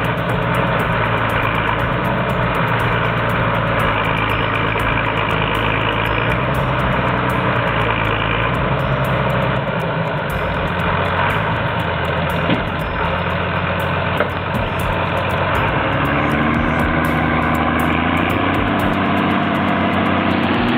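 A heavy vehicle engine running steadily, rising in pitch and getting louder from about three-quarters of the way through.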